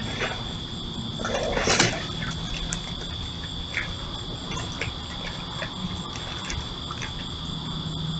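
Raccoons feeding at a plastic tub, heard through a trail camera's built-in microphone: scattered small clicks and rustles with one brief louder rasp just under two seconds in, over a steady high insect drone.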